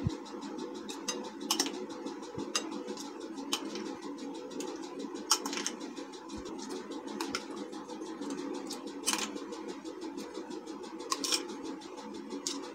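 Steady background hum with scattered light clicks and taps as mango pulp is spread by hand in a glass dish.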